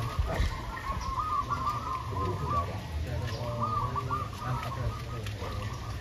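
Zebra doves (perkutut) cooing: a run of quick, arching coo notes about a second long at the start, and another about three and a half seconds in, over a low steady rumble.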